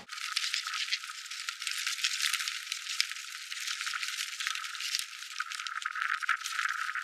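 Paper banknotes rustling and fluttering in a dense, irregular rattling crackle, with all the low sound cut away so it sounds thin and hissy.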